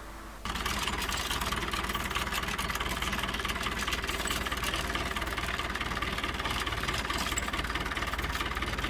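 An engine running steadily, cutting in abruptly about half a second in.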